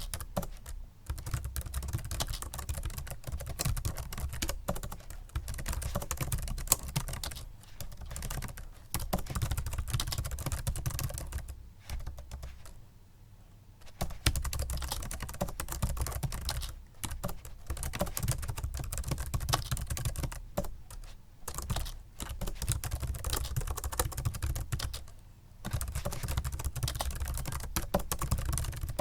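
Fast typing on a Microsoft Sculpt Ergonomic membrane keyboard: a dense run of key clicks broken by a few short pauses, the longest about twelve to fourteen seconds in.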